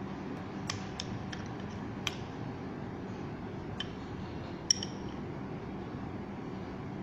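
A few light, sharp clicks and taps of a metal box mod vape being handled, over a steady low hum. The clicks are spread over the first five seconds, and the last is the loudest, with a short metallic ring.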